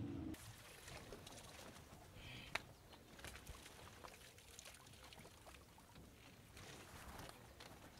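Faint rustling and splashing of water hyacinth being pulled out of the water by hand, with scattered small crackles and one sharp click about two and a half seconds in.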